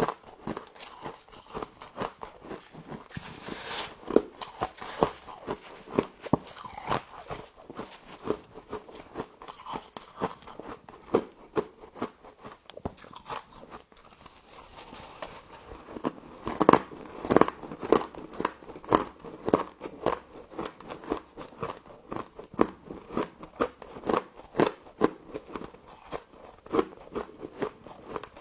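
Frost being bitten and chewed close to the microphone: a steady run of crisp, irregular crunches and crackles, with a louder, denser stretch of bites a little past halfway.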